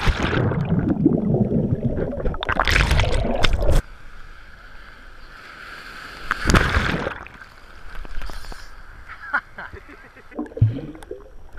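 Sea water sloshing and gurgling around a waterproof camera, heavy and muffled while it is under the surface, then dropping away suddenly about four seconds in. A brief splash comes about six and a half seconds in.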